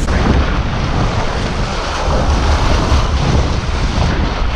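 Churning whitewater rushing and splashing along a moving boat's hull as a blue marlin thrashes at the surface beside it, with wind buffeting the microphone.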